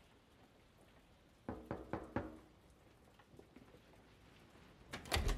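A quick run of about five knocks on a door, a little over a second in. Near the end comes a loud clap of thunder, with rain.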